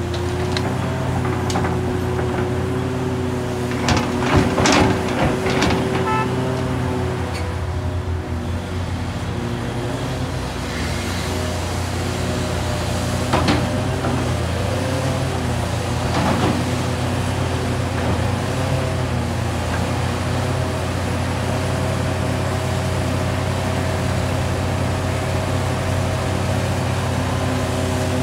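Hitachi Zaxis 670LCR hydraulic excavator working: its Isuzu six-cylinder diesel runs steadily under load with a constant whine, while earth and rock tumble from the bucket into a steel truck bed with a burst of clattering about four to six seconds in, followed by a few single knocks as the bucket digs.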